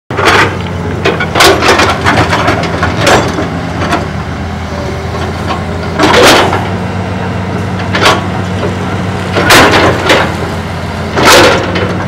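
Hitachi Zaxis 200 excavator's diesel engine running steadily under load, with about ten loud, sudden scrapes and clanks as the steel bucket digs into and drags through dirt and rubble.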